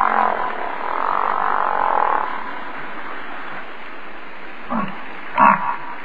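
American bison grunting: two short, croaky grunts near the end, over a steady outdoor hiss.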